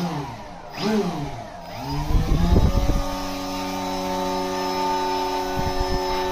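Electric motor and propeller of a foam delta-wing RC plane being throttled: a few quick whines that rise and fall, then a steady whine held from about three seconds in.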